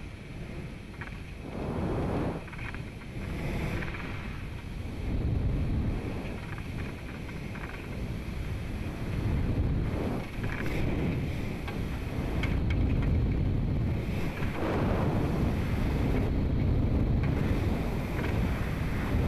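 Low, uneven rushing and rumbling of air buffeting the rocket and its onboard microphone high in the thin upper atmosphere. It swells and eases in waves every few seconds and grows louder overall.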